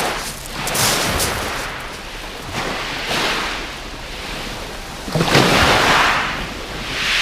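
Sea waves rushing in and breaking on the beach in repeated swells about every two seconds, the biggest about five to six seconds in, with wind rumbling on the microphone.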